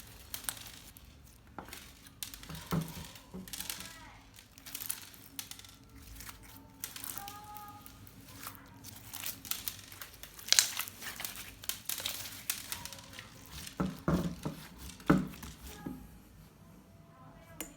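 Slime being kneaded and stretched by hand with gem toys mixed in: irregular sticky crackles and small pops, with sharper clicks about ten and fifteen seconds in.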